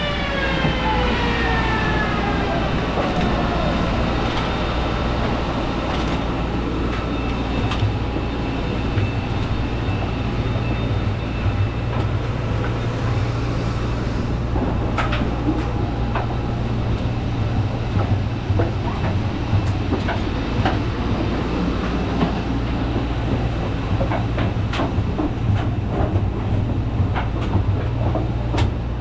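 Steady hum of a parked Airbus A320 cabin as passengers get up to leave, with scattered clicks and knocks from seatbelts and overhead lockers. Over the first few seconds a whine falls in pitch and fades as a machine winds down.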